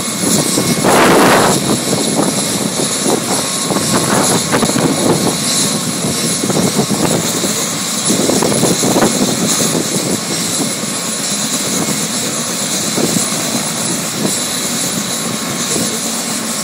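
Helicopter running on the helipad with its main rotor turning: a steady engine whine over the beat of the blades, with a brief louder rush about a second in.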